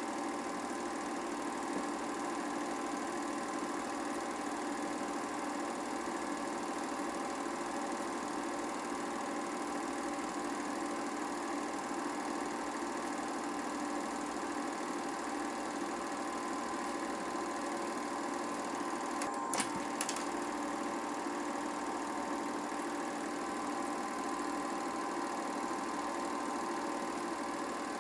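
8mm film projector running, a steady mechanical whirr and clatter from its motor and film transport. Two short clicks come about two-thirds of the way through.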